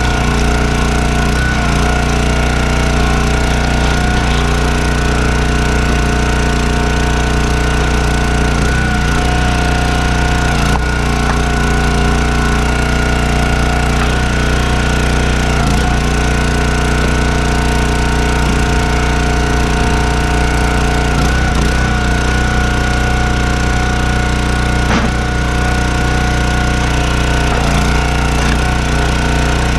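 Engine running steadily at a constant speed, with a few faint knocks now and then.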